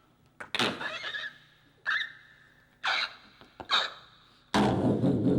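A man imitating a broken-down robot with his voice: four short squeaky whirs about a second apart, then from about four and a half seconds in a loud steady buzz like a running motor.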